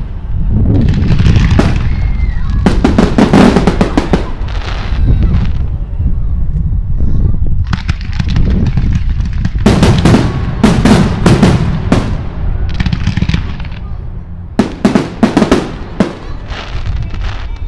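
Fireworks display: aerial shells bursting in three volleys of rapid, sharp bangs and crackling, each lasting a few seconds.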